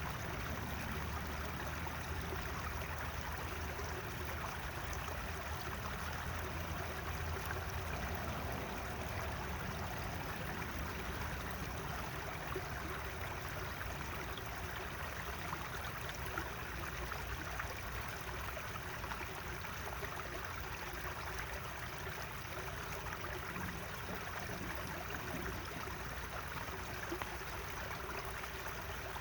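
Natural running water, a stream flowing and babbling steadily with no break.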